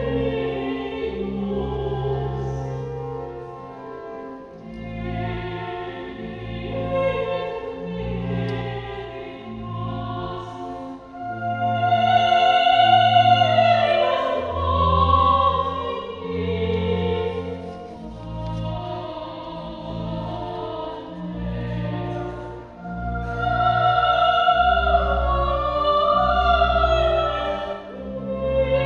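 A soprano sings held operatic notes with vibrato over an organ's sustained low notes. The singing swells louder about halfway through and again near the end.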